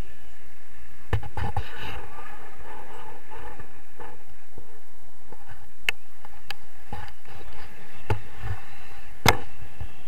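Wind rushing over an action camera's microphone during a tandem paraglider flight, with sharp knocks and clicks several times, the loudest near the end.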